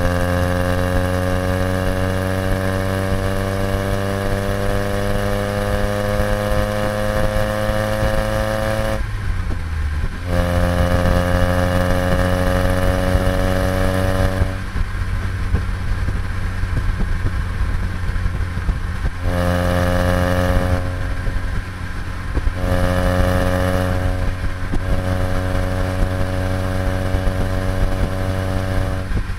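Nissan Sunny B11 1.5 GL's four-cylinder engine heard at the exhaust while driving. It pulls with steadily rising pitch for about nine seconds, breaks off briefly and picks up again at a slightly lower pitch, then fades and returns several times as the throttle is lifted and reapplied.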